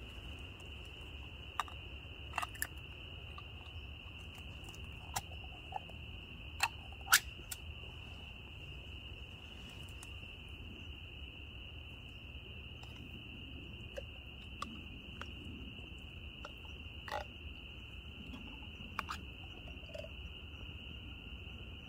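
Steady high-pitched chorus of distant frogs, with a scattering of light clicks and clinks from a metal can and a titanium pot being handled, the sharpest about seven seconds in.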